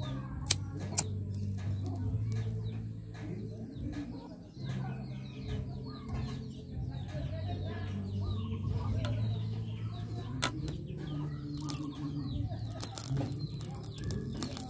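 Chickens clucking and other birds calling, over a steady low hum, with a few sharp clicks.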